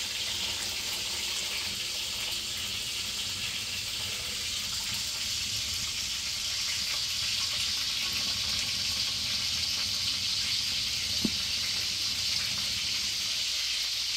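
Hot water pouring steadily from a pot of boiled potatoes through a straining lid into a stainless steel sink, a continuous splashing hiss as the potatoes are drained.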